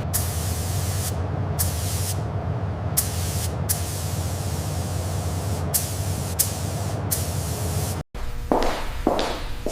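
Sprayer hissing in repeated bursts that start and stop several times over a steady low hum, as from a spray gun or spray nozzle working on the car. The sound cuts off abruptly near the end and is followed by a few short knocks or taps.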